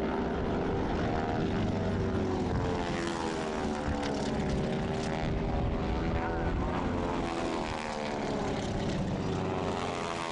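Propeller drone of several North American AT-6 Texans' Pratt & Whitney R-1340 nine-cylinder radial engines flying in formation. The engine pitch slides up and down as the planes pass, with several engine notes crossing one another.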